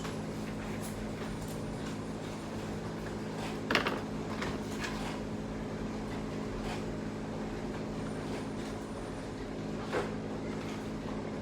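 A steady low machine hum with a few light clicks and knocks, the sharpest about four seconds in and another near the end.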